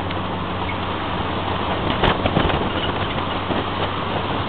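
Engine of a 1968 torpedo-bodied soft-top car running at a steady pace on the road, heard from inside under the canvas top: a constant low engine hum over road and wind noise. A sharp click sounds about two seconds in.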